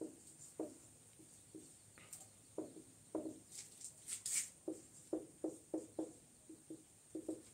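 Marker pen writing on a whiteboard: a string of short squeaky strokes and taps, quicker near the end, with a few scratchier strokes in the middle.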